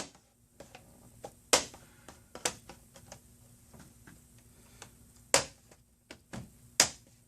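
Plastic screen bezel of a Dell Latitude E6530 laptop being pressed back on, its snap clips clicking into place with about six sharp, irregularly spaced clicks.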